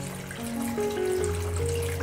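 Slow background music with held notes, over the faint trickle of water spilling from a small tabletop fountain into its basin.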